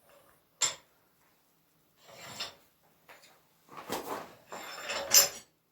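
A block of beeswax rubbed onto the forged railroad-spike steak turner: a single sharp click, then a few separate rubbing, scraping strokes, the last one loudest.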